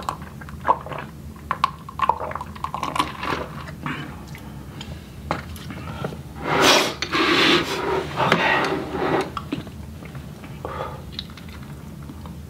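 Close-up eating and drinking mouth sounds: swallowing from a cup, then smacking and chewing, with a louder breathy stretch near the middle.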